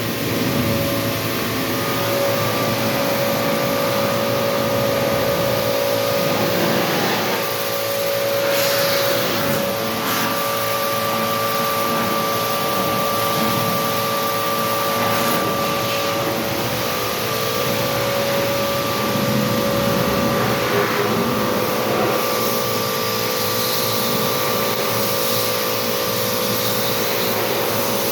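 Small electric pressure washer running steadily, its motor hum carrying a few steady tones under the hiss of the water spray, as it washes a window air conditioner; the spray swells briefly a few times.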